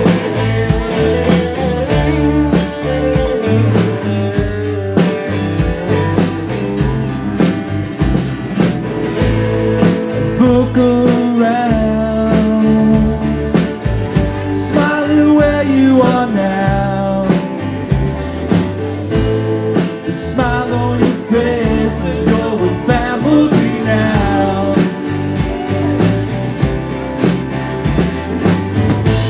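Live band playing a blues-rock song: drum kit, bass, and acoustic and electric guitars, with a lead melody bending in pitch through the middle.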